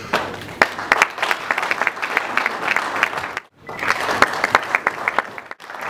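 Audience applauding, many hands clapping quickly and unevenly. The applause drops out briefly twice, about halfway through and near the end.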